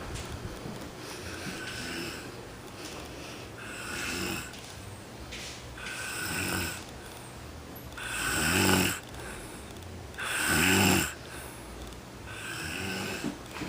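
A person snoring in a steady rhythm, one snore about every two seconds, swelling louder toward the middle.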